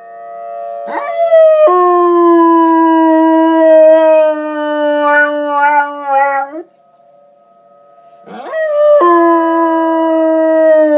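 Dog howling in two long howls. Each rises in pitch, then holds with a slow downward slide; the first ends about two-thirds of the way through and the second starts soon after. Between the howls a faint, steady tornado siren tone can be heard, which the dog is howling along with.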